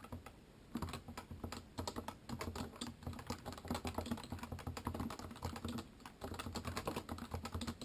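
Topre Realforce 86U keyboard being typed on at an easy pace: a run of key presses on its capacitive rubber-dome switches. There is a short pause at the start and another brief lull about six seconds in.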